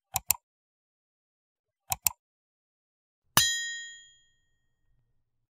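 Two quick double mouse-clicks about two seconds apart, then a bright bell ding that rings out and fades over about a second. These are the sound effects of an animated like, subscribe and notification-bell button: the clicks press like and subscribe, and the ding is the bell.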